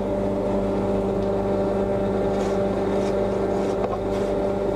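Electric hand planer running steadily, shaving the outside of the wooden hog down to the bevel taken from the mould so the garboard plank will sit.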